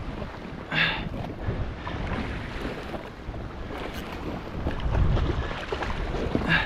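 Wind buffeting the microphone over choppy sea washing against a jetski's hull, with a short burst of noise about a second in.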